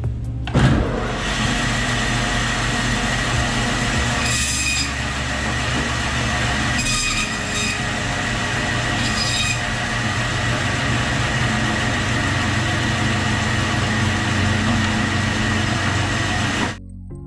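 Meat-cutting bandsaw running as its blade cuts through pieces of a goat's head: a steady, loud machine whine with a thin steady tone. Three brief harsher bursts come in the first half, and the sound stops abruptly near the end.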